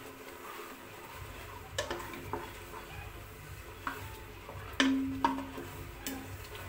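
A ladle stirring thick daal in an aluminium pressure cooker, knocking against the side of the pot about six times; each knock rings briefly. A low steady hum starts about a second in.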